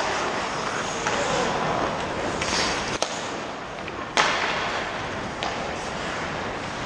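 Ice hockey play: skate blades scraping the ice over a steady rink hiss, with about five sharp clacks of stick and puck. The loudest clack comes about four seconds in.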